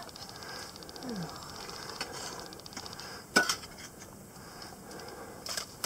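Climbers scrambling on rock: metal climbing hardware clinking and boots scuffing against the rock, with one sharp, loud clack about three and a half seconds in and a smaller one near the end.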